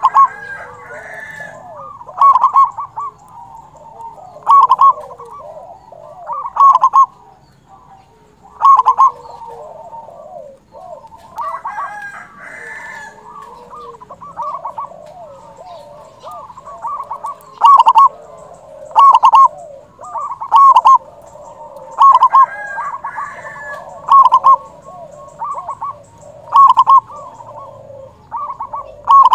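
Zebra dove (perkutut) cooing vigorously, its loud staccato coos repeating every one and a half to two seconds with a quieter lull in the middle, over softer bird calls underneath.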